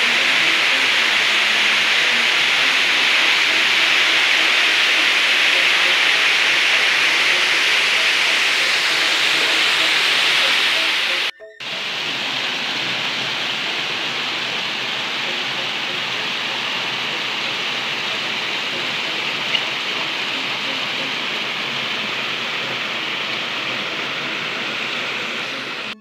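Waterfall rushing steadily, an even hiss of falling water. It breaks off for a moment about eleven seconds in and comes back slightly quieter.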